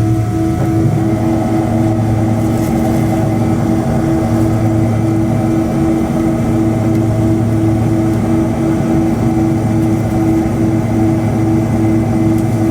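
Boeing airliner's jet engines running steadily, heard from the passenger cabin: a loud, even low hum with steady tones over it and one tone pulsing on and off about twice a second.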